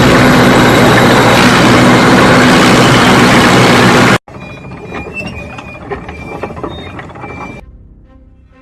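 Cartoon tank sound effect: a very loud, dense engine-and-track rumble with a steady low hum, which cuts off suddenly about four seconds in. Quieter clattering with short high tones follows and fades away.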